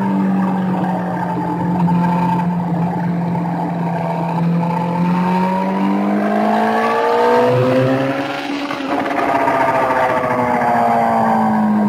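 Sport motorcycle engine running at speed on a race track, heard onboard with wind rush. The engine note holds steady, climbs for a couple of seconds past the middle, eases off briefly, then picks up and slowly falls again.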